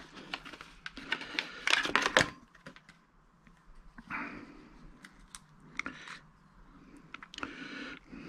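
Crackling and clicking of a plastic blister pack of super glue being handled and opened, with a loud burst of crinkling about two seconds in, then scattered small clicks and taps as parts are picked up and put down.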